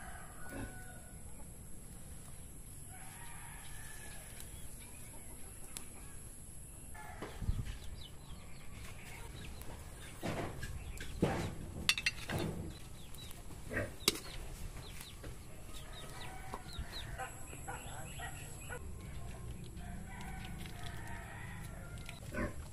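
Chickens clucking on and off, with a cluster of knocks and clatters in the middle as a plate and utensils strike a metal frying pan.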